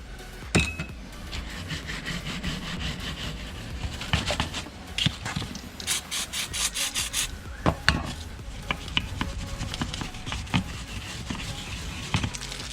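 Gasket scraper scraping old gasket material off a sealing surface on a Toyota 22R engine, in irregular strokes with a quick run of strokes about two thirds of the way through. A few sharp knocks are heard, one just after the start.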